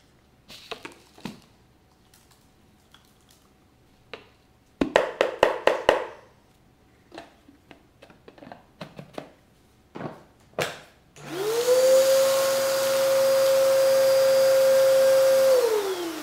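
Hands handling a bagless upright vacuum's plastic dust cup: scattered clicks and taps, with a quick run of about six sharp knocks about five seconds in. About eleven seconds in, a Bissell upright vacuum's motor switches on, whines steadily for about four seconds, then winds down as it is switched off.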